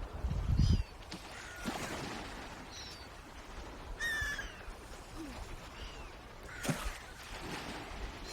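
Birds calling: about six short, pitched calls that fall in pitch, a second or so apart, with a low rumble in the first second.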